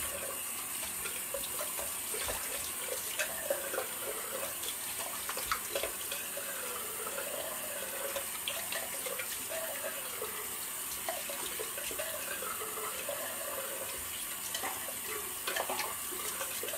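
Bathroom tap running steadily into the sink, with water splashing as the face is rinsed off after the shave.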